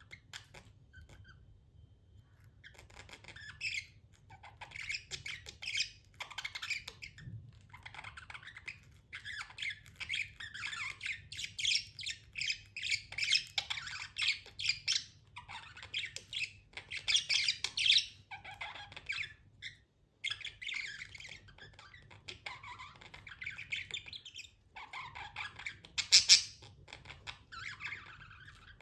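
Pet budgerigars chirping and chattering in rapid high-pitched runs with short pauses, with one louder sharp squawk near the end.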